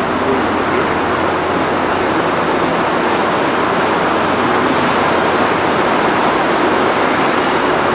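Steady, loud vehicle noise, an even rumble and hiss with no breaks.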